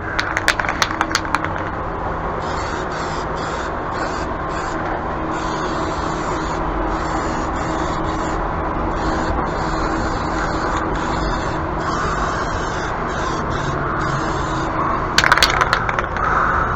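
A box fan runs with a steady hum and rush, while spray paint hisses in repeated short bursts over it. There are a few clicks near the start and again near the end.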